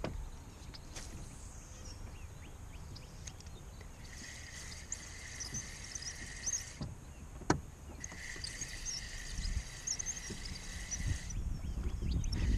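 Water lapping against a fishing kayak's hull, with a steady low rumble of wind on the microphone. A fishing reel whirs in stretches as a lure is cranked in, starting about four seconds in, pausing twice, and there is one sharp click about halfway through.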